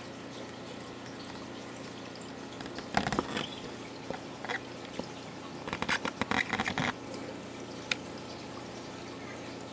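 Steady hum and running-water noise of an aquarium's pump or filter. A brief cluster of rattling knocks comes about three seconds in and a longer one around six to seven seconds, with a single click near the end.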